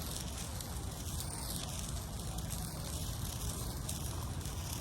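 A lit handheld sparkler fizzing with a steady hiss, over a low rumble of wind on the microphone.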